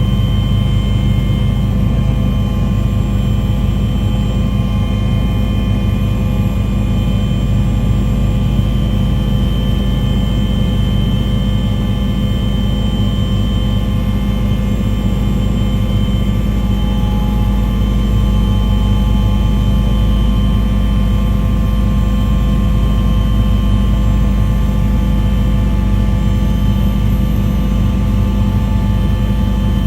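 Engine running at a steady pitch, a loud unbroken drone with a constant whine over a low rumble.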